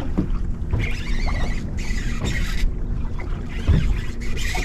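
Wind buffeting the microphone aboard a small fishing boat, with a low steady hum underneath and brief bursts of hiss twice.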